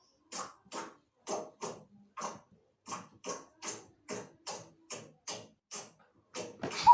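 Slime being squeezed and kneaded by hand, giving a regular run of short wet clicks and pops, about three a second, with a louder sound right at the end.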